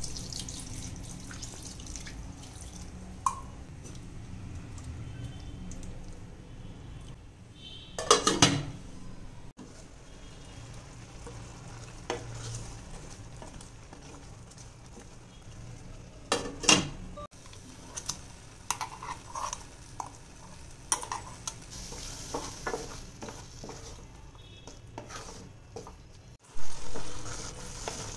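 Ripe mango pieces cooking in a nonstick pan over a steady sizzle, with a wooden spatula stirring and mashing the pulp against the pan. There are frequent small scrapes and clicks, and three louder knocks and scrapes of the spatula against the pan.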